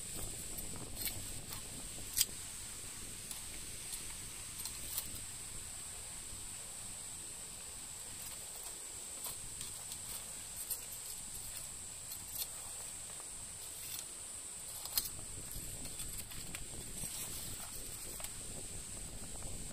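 Cicadas shrilling in a steady high-pitched drone, with scattered light clicks and knocks, the sharpest about two seconds in.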